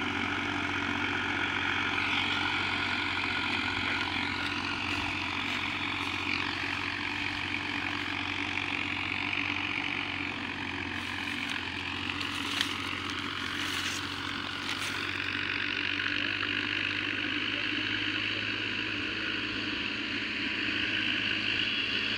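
Farmtrac 60 tractor's diesel engine running hard under load, a steady drone whose pitch drifts slowly up and down as it labours to pull a trolley. A few short clicks sound around the middle, the sharpest about twelve seconds in.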